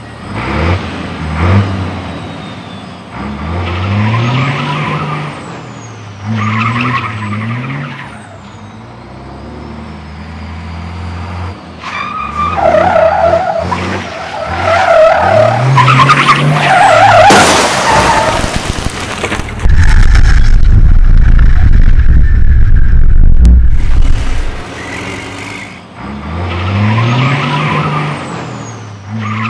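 Race truck engine revving hard in repeated rising sweeps while its tyres squeal and skid as it drifts on tarmac. About two-thirds through comes a few seconds of loud, steady low rumble.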